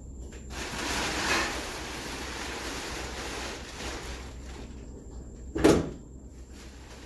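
Rustling, scraping handling noise, then a single sharp knock about five and a half seconds in, the loudest sound.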